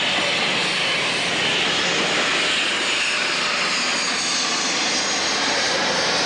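A diesel high-speed passenger train passing at speed on an embankment, its coaches making a steady, even rushing noise over the track.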